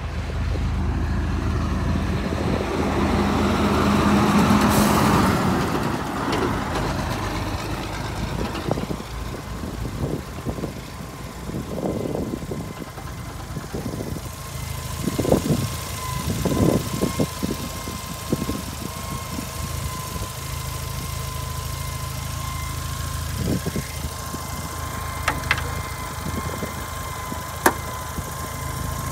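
Mazda RX-7's twin-turbo 13B rotary engine idling steadily, swelling briefly about four seconds in. About halfway through, a thin steady whine joins the idle, along with a few light knocks.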